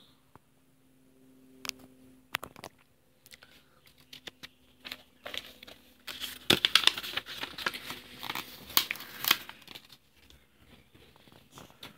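Glossy comic-book pages being turned and handled: a few scattered paper clicks, then a dense few seconds of rustling and crinkling in the middle.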